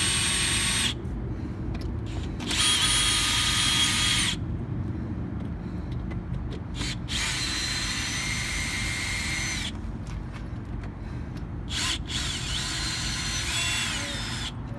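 Cordless drill-driver backing the screws out of a wooden shipping crate's lid. Its motor whines in about four separate runs of one to three seconds each, with short pauses between them as it moves from screw to screw. In the last run the pitch dips and rises.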